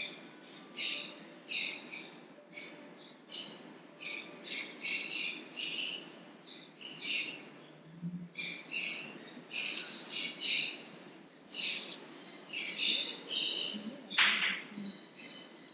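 Small birds chirping over and over, short high calls a little more than one a second, with one louder squawk near the end over a steady low hum.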